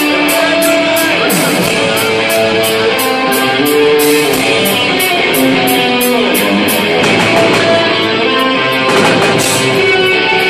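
Live instrumental rock band: a lead electric guitar plays a melody of long held notes over bass and drums, with cymbals struck in a steady beat of about three a second.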